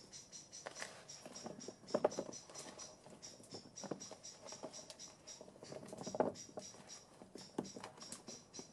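Raw potato pieces being handled and shifted in a plastic bowl: irregular soft knocks and taps, the loudest about two seconds in and again about six seconds in. A steady, rapid high chirping runs behind them.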